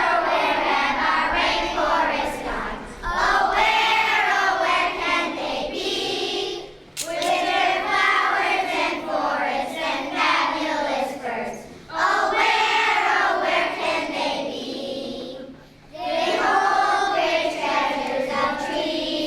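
A choir of young children singing together in long phrases, with short breaths between phrases about every four to five seconds.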